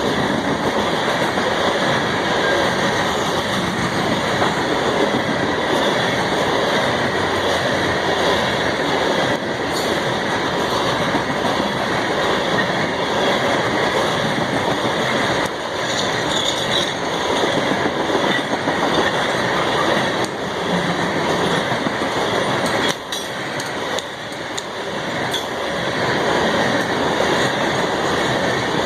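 CSX freight train's cars rolling past on the tracks, with a steady, loud rumble and clatter of wheels on the rails.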